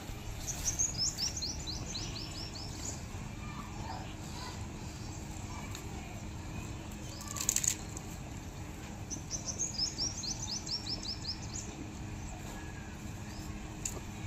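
A small songbird sings two phrases of rapid, falling chirps, about eight seconds apart, over steady low outdoor background noise. A short scratchy sound comes about seven and a half seconds in.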